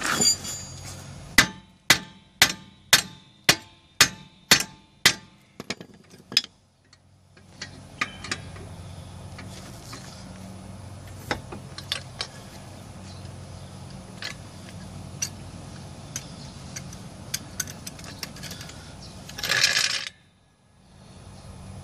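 A hammer strikes the steering knuckle again and again to break the lower ball joint loose: about eight ringing metal blows, roughly two a second. Lighter clinks of tools on metal follow, and a short loud noisy burst comes near the end.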